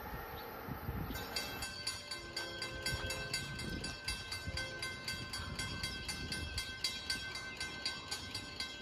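Distant Amtrak train horn sounding faintly twice, a longer blast then a short one. Over it runs a rapid, regular ticking of about five a second with a steady high ringing tone.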